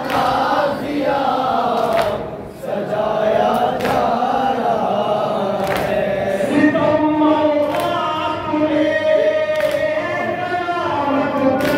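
A noha, a Shia lament, chanted by a male reciter over a microphone while a group of men and boys sing along in chorus. A sharp slap lands about every two seconds, the beat of matam, hands striking chests in time.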